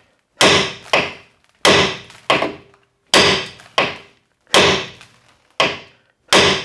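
About nine hard hammer blows on a rusted, seized suspension bolt in a Ford Focus Mk2 rear link arm, roughly one every 0.7 s, each with a short metallic ring. The bolt is being driven to free it and is not shifting.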